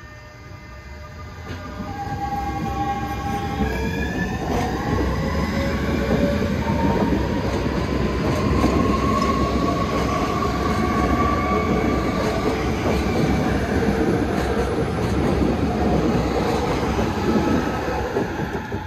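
Transperth C-series (Alstom X'trapolis) electric multiple unit accelerating away from the station and passing close by. Its traction motors whine in a series of tones that step up in pitch, then give a smoother rising whine, over a dense rumble of wheels on rail. The sound swells over the first couple of seconds and falls away near the end as the train goes by.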